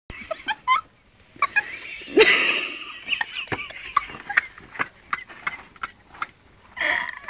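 A woman laughing hard, mostly with her breath: short squeaky snickers and wheezing gasps, with a louder breathy burst about two seconds in.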